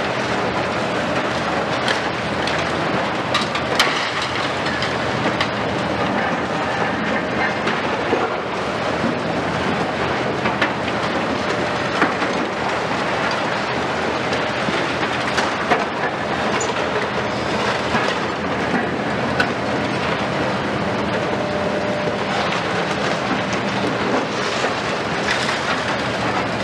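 Liebherr R 974 and Hitachi 870 high-reach demolition excavators running steadily while breaking up a concrete high-rise, with a continuous crackle and rattle of falling concrete debris and frequent sharp knocks and cracks.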